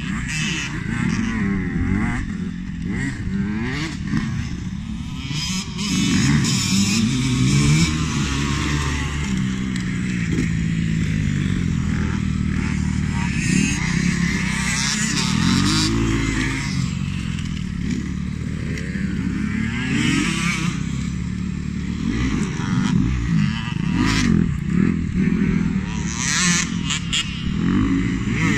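Several motocross dirt bikes riding laps, their engines revving. The overlapping engine notes repeatedly rise and fall as the riders accelerate and ease off.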